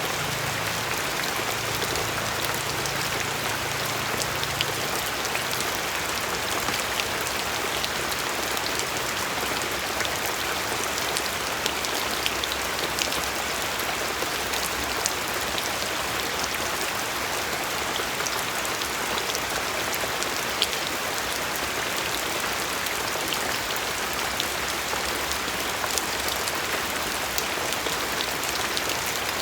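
Steady rain falling, an even hiss dotted with sharper ticks of individual drops. A faint low hum sits under it for the first few seconds.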